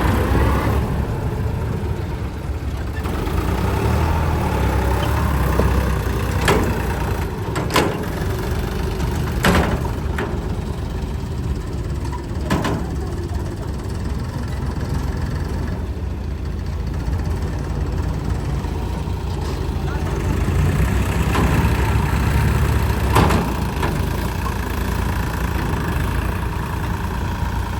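Diesel engines of a JCB backhoe loader and farm tractors running steadily at work, with several sharp knocks or clanks scattered through.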